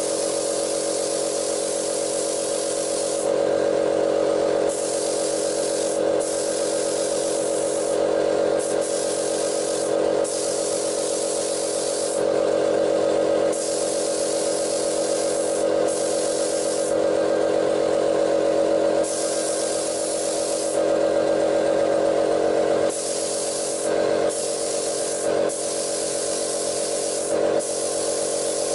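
Paint spray gun spraying primer, hissing in repeated spurts with short breaks as the trigger is pulled and released, over a steady motor hum.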